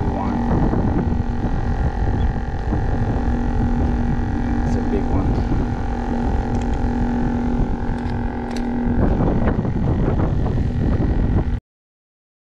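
A steady engine drone with a held hum, under wind noise on the microphone. The hum stops about nine seconds in, and the sound cuts off abruptly near the end.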